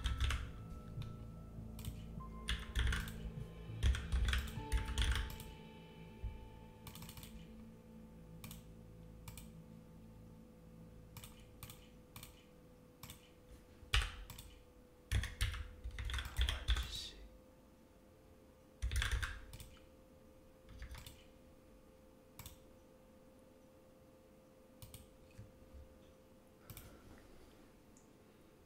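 Typing on a computer keyboard: irregular bursts of key clicks with pauses between them, busiest in the first few seconds and again around the middle, thinning out toward the end. A faint steady hum runs underneath.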